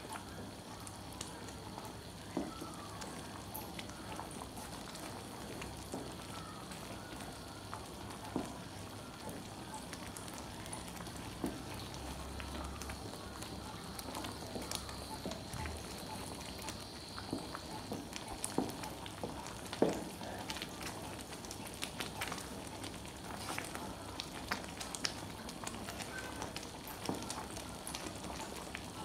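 Chocolate syrup of cocoa, sugar and water simmering in a pan, bubbling over a steady hiss, while a wooden spoon stirs it and now and then knocks against the pan.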